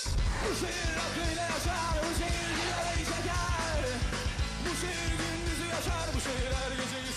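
Rock music with a sung vocal line over heavy bass and drums.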